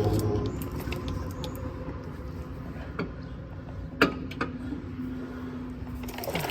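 Hand tools on metal: a few light clinks and one sharp knock about four seconds in, with a steady hum fading out at the start and a faint steady hum in the last couple of seconds.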